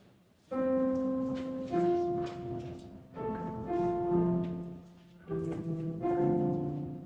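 Instrumental music starts about half a second in: slow held chords that change every second or two.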